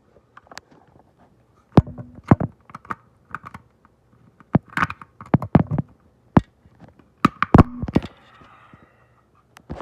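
Irregular plastic clicks and knocks of a hardwired smoke detector being handled and fitted back onto its mounting bracket. The loudest knocks come about 2 s in and around 7 to 8 s, followed by a brief faint scrape.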